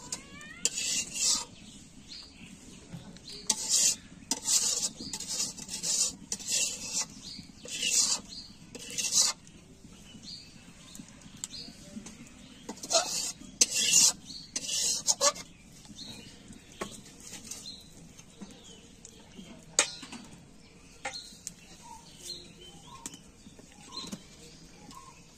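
Metal spatula scraping and stirring chicken curry in a stainless steel bowl. It makes a run of short scrapes through the first third, another cluster about halfway through, then only light clinks.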